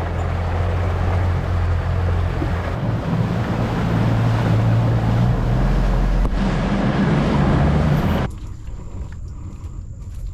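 An aluminum fishing boat's motor running steadily under way, with wind and water noise over it. About eight seconds in, the motor sound cuts off abruptly, leaving quieter wind and water hiss.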